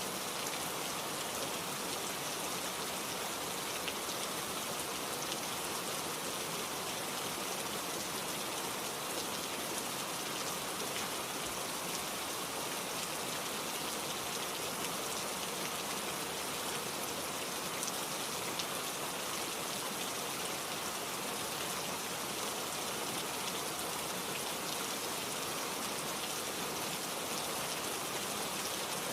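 Steady rain falling, an even hiss of many drops hitting a surface, with no thunder.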